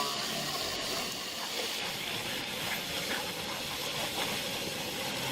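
Steady rushing, hissing noise of heavy machinery running, with no clear rhythm or pitch.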